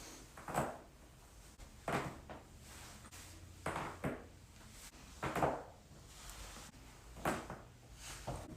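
A series of short, sharp pops from a back being cracked in chiropractic adjustments, about seven of them at uneven intervals, over a low steady hum.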